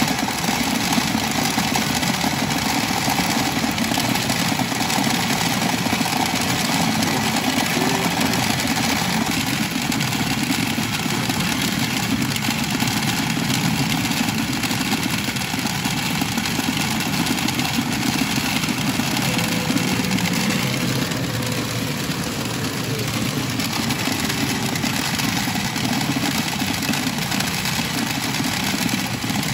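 Steady, loud din of a pachinko parlour: many machines' electronic sound effects and the clatter of steel balls blended into one even wash of noise.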